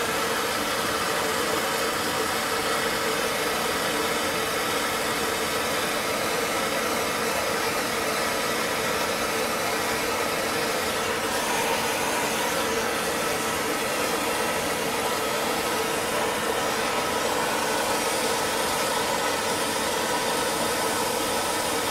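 Handheld propane torch burning with a steady hiss, its flame heating a copper pipe joint to sweat solder into it.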